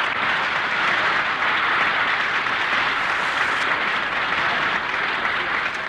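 Studio audience applauding steadily, greeting a guest's entrance; it eases off slightly near the end.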